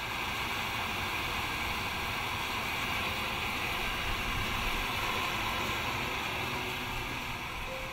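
Steady, even hiss of a gas burner firing a small drum kiln.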